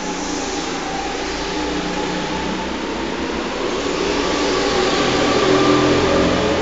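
Several go-kart engines running around an indoor track, their hum echoing under the roof, swelling as karts come closer about five to six seconds in and easing off near the end.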